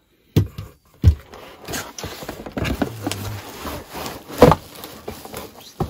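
Cardboard carton and bubble wrap being handled as a bubble-wrapped ring light is pulled out of its box: rustling and scraping, with sharp knocks about a third of a second and about a second in, and a louder thump about four and a half seconds in.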